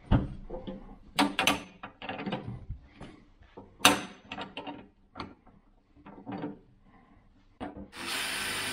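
Sharp knocks and clatter of a metal hasp and cordless drill being handled against a steel electrical enclosure, then near the end a DeWalt cordless drill starts up and runs steadily with a high whine, drilling into the box at the hasp.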